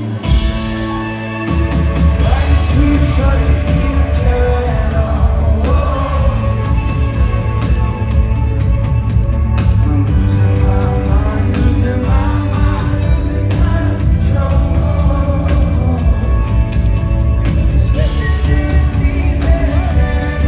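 Rock band playing live with a lead vocalist singing. After a sharp hit at the start, the full band with drums and bass comes in heavily about a second and a half in.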